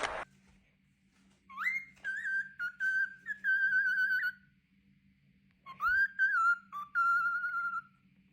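A pet bird whistling two short phrases, each opening with a rising whistle and followed by a few held, slightly wavering notes.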